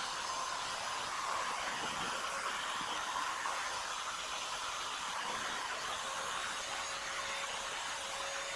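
Corded rotary tool running steadily at high speed, its wire wheel brush scrubbing rust and old paint off a steel mower deck.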